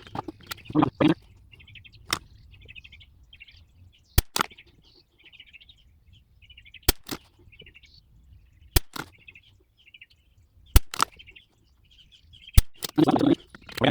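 Six sharp .22LR rifle shots, about two seconds apart, each with a quick fainter echo. Birds chirp throughout, and there is a rustle of handling near the end.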